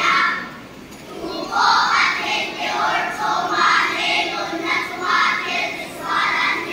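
A large group of young children's voices together in unison, in short phrases with brief breaks between them.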